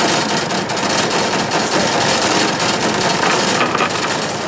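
Boat outboard motor idling steadily.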